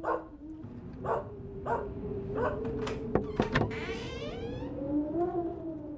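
A farm dog barking in short bursts, over a steady held whining tone. About midway there are a few clicks and a creak as the wooden door is opened.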